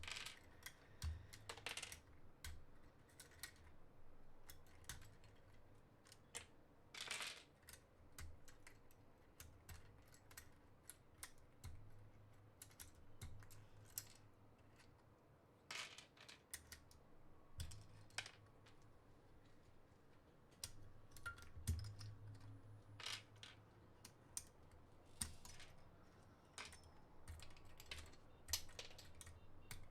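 Keycaps being swapped on a mechanical keyboard: faint, irregular plastic clicks and clacks as keycaps are worked on and off the key switches, with a few sharper knocks.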